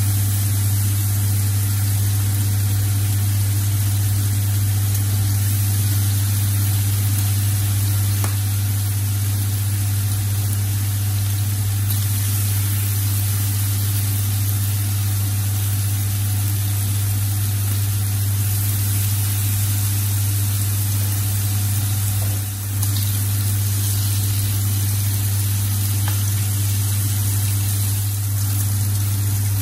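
Bacon and beef patties sizzling on an electric griddle, an even hiss, under a loud, steady low hum.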